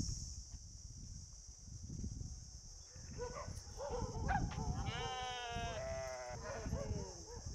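Flock of sheep and goats bleating, several calls starting about three seconds in, with one long wavering bleat about five seconds in.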